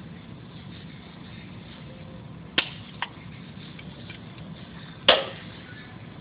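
Sharp metal clicks of a screwdriver working a spring hose clamp on a coolant hose: two clicks close together, then a louder one with a short ring near the end, over a steady low hum.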